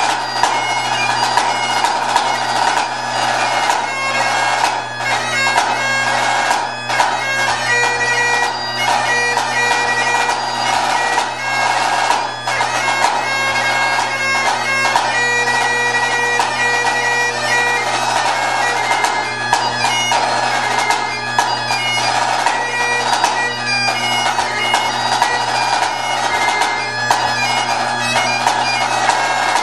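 Highland bagpipes playing a tune over their steady drones, with a pipe band snare drum played alongside in quick strokes and rolls.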